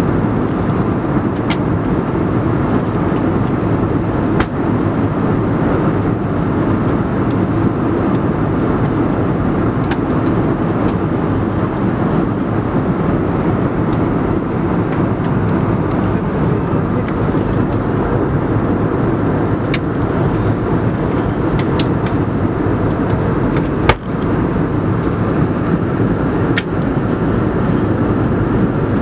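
Steady rushing cabin noise of an airliner in flight, engine and airflow noise heard from inside the cabin, with a few small clicks, the sharpest one near the end.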